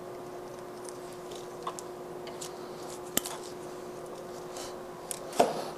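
Faint clicks and scrapes of a hand tool stripping and trimming the sheathing of Romex electrical cable, with one sharp click about three seconds in, over a steady low hum.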